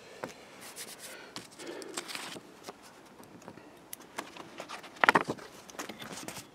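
Pen and paper being handled while marking out paper gaskets: irregular rustling and scratching, with a cluster of sharp clicks about five seconds in.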